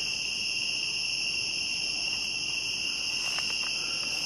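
Night insects in the woods, a steady, unbroken high-pitched chorus.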